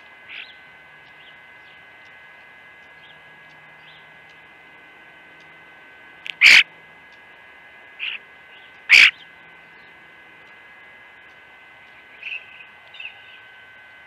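Sharp taps of a northern flicker's bill striking the suet and wire suet cage as it feeds: two loud knocks about two and a half seconds apart, with lighter taps before each.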